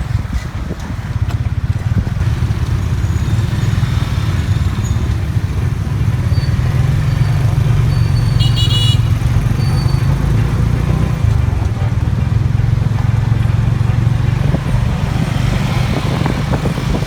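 Motorcycle engine of a tuk-tuk running steadily while riding, with road noise, heard from the passenger seat. A short high beep sounds about eight and a half seconds in.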